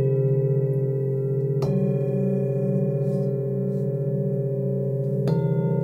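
Forged Nepalese singing bowl, 24 cm and tuned to about 111 Hz (A), struck twice, about 2 and 5 seconds in. Its deep tone rings on with many higher overtones and a slow wobble between strikes.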